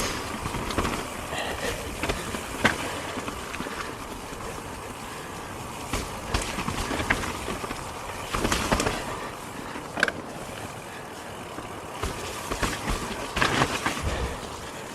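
Transition Spire alloy enduro mountain bike rolling down a rooty dirt trail: steady tyre and riding noise, with sharp knocks and rattles as the bike hits roots, several times.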